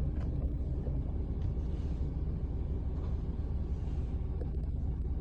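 Steady low rumble of a car's cabin while driving, with a few faint light ticks.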